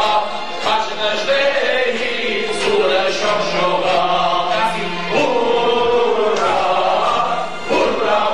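A group of men singing together, a choir-like chant.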